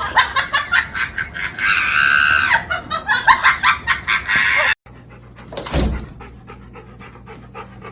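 A dog barking and yapping in quick bursts for about five seconds, then a sudden cut to a quieter stretch with one short rush of noise about six seconds in.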